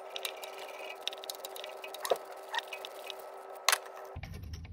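Scattered light clicks and taps of tools being handled at the engine, over a steady hum, with one sharper click near the end.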